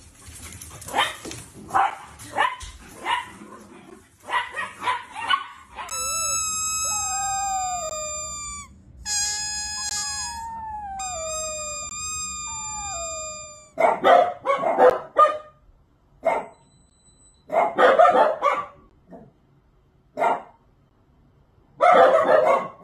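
Dachshunds: first short sharp sounds as puppies run, then a dachshund howling in long wavering howls that fall in pitch, in three stretches, then loud bursts of dog barking near the end.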